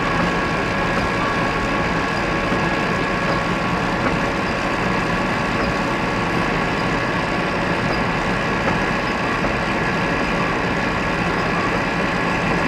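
Factory machinery running steadily: a constant dense mechanical din with several steady tones held over it.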